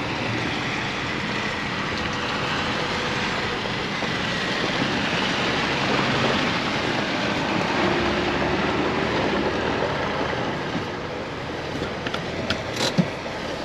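Steady running noise of a vehicle moving slowly over a rough, wet quarry track, heard from inside the cab, with a few sharp clicks near the end.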